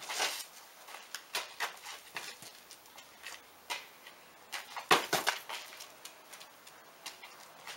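A cattle dog's claws tapping and scuffing on concrete as she moves about, with a louder cluster of knocks and scrapes about five seconds in as she grabs a soccer ball in her mouth.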